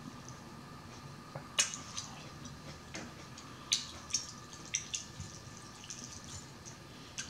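Close-up wet mouth sounds of a person chewing fried chicken: scattered short lip smacks and clicks, about a second apart, over a faint steady background.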